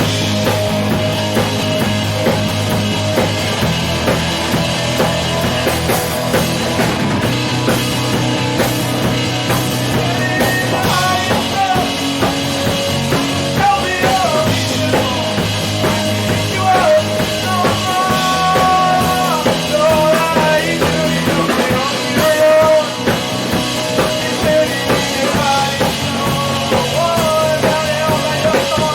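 Rock band playing an instrumental passage of a pop-rock song: drum kit and sustained bass. A melodic lead line comes in about ten seconds in and runs to near the end.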